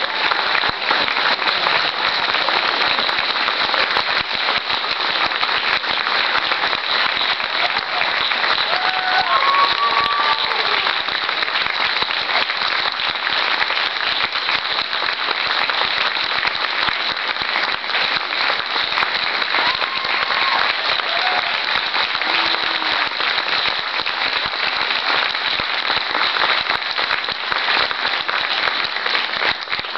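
Audience applauding steadily and continuously, with a few brief voices calling out above the clapping.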